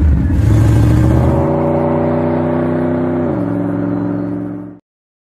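Logo intro sound effect: a loud rush that settles into a steady held tone, steps down in pitch about three seconds in, then fades out.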